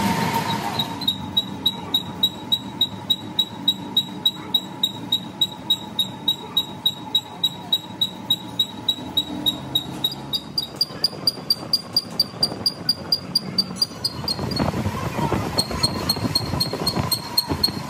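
Steady rhythmic tapping, about three strikes a second, each with a short high ring. The ring's pitch shifts up about ten seconds in, and a rougher noise joins near the end.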